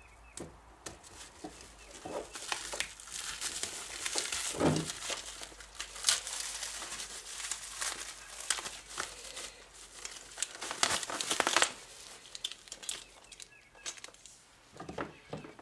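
Plastic wrapping crinkling and tearing as it is pulled off by hand, with many small crackles and a few light knocks.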